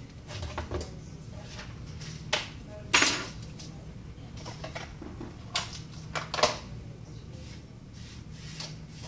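Several sharp clinks and knocks of small hard objects being handled and set down on a work surface. The loudest comes about three seconds in, with a short ring after it, and a steady low hum runs underneath.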